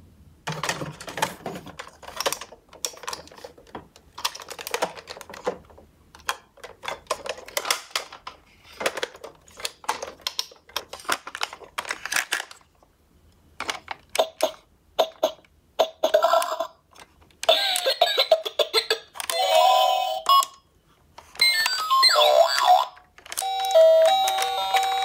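Clicks and knocks of a plastic toy ambulance playset being handled. About halfway through, the toy's electronic sound unit starts playing chiming beeps, and a short tinny tune follows near the end.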